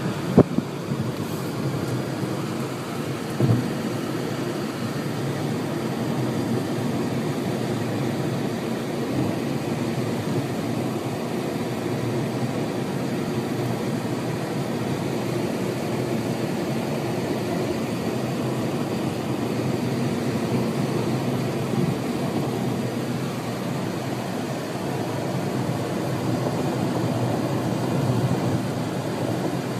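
Steady low rumble of road and engine noise inside a car moving at highway speed, with two short knocks in the first few seconds.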